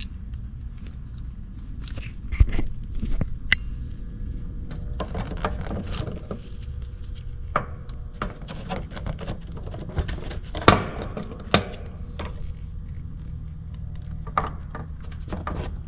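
Scattered clicks, taps and rattles of hands working small wire connectors as the Supco SPP5 hard start kit's leads are pushed onto the herm and common terminals of an AC condenser's dual run capacitor, over a steady low rumble. The sharpest click comes about two-thirds of the way through.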